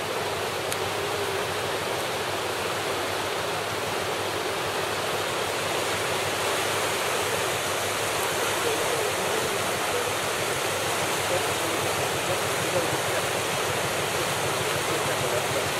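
River water rushing steadily through shallow rapids over gravel, a continuous, even rush of fast water.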